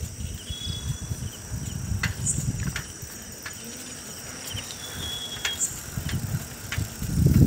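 Bicycle riding along a paved road: an uneven low rumble of wind and tyre noise with scattered clicks and rattles, over a steady high chirring of crickets.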